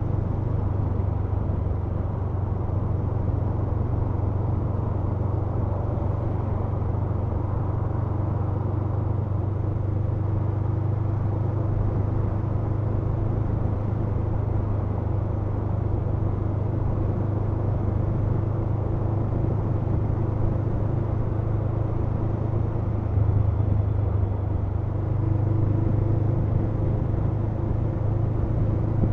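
Honda CMX500 Rebel's parallel-twin engine running at a steady cruise while riding, a low, even drone. The engine note lifts slightly about 23 and 25 seconds in.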